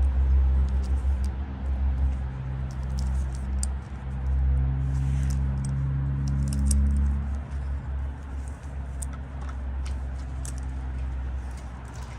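A motor running with a steady low hum that eases off after about seven seconds, while small metal pieces jingle and clink now and then.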